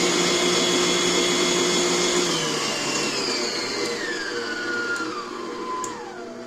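Stand mixer's 660 W electric motor running empty at its top speed with a steady whine, then turned back down through its speeds: from about two to three seconds in, the whine drops in steps to a lower pitch.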